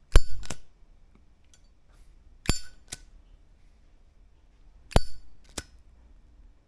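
Zippo lighter's metal lid clicked open and snapped shut three times, each a pair of sharp clinks with a short metallic ring, about half a second apart.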